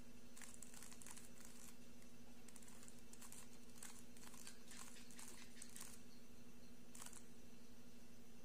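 Plastic 3x3 Rubik's cube layers being turned in quick runs of clicking turns as an F2L algorithm is performed, with one last turn near the end. A steady low hum runs underneath.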